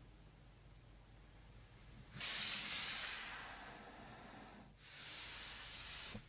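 Two bursts of hissing spray: the first starts sharply about two seconds in and fades away, and the second, steadier one follows after a short break and cuts off suddenly near the end.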